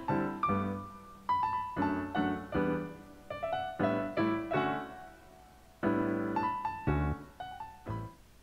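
Piano music: a run of struck chords and single notes, each ringing and fading before the next.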